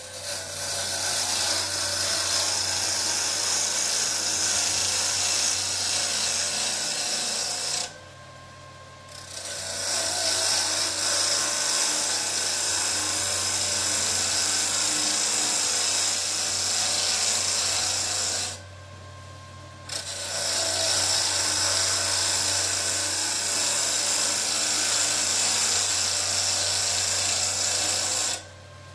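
Turning tool cutting a spinning wooden bowl blank on a Charnwood W821 midi woodturning lathe: a steady scraping hiss in three long passes of about eight to nine seconds each. In the short breaks between them only the lathe's steady motor hum is heard.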